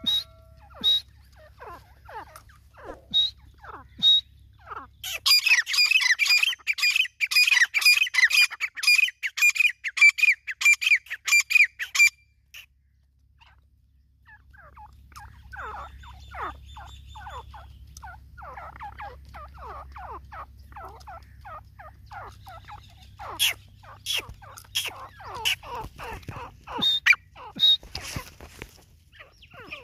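Grey francolin (desi teetar) calling: a loud, rapid run of repeated shrill notes lasting about seven seconds, then after a short pause a long stretch of soft, quick clucking notes, with a few sharp clicks near the end.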